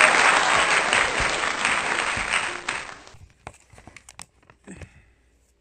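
Loud applause that fades out about three seconds in, followed by a few faint clicks.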